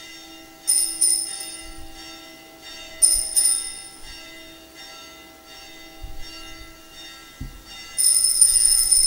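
Altar bells (a cluster of sanctus bells) shaken in short jingling rings about a second in and again about three seconds in, then a longer continuous ring near the end, marking the elevation of the chalice at the consecration. A steady held tone sounds underneath.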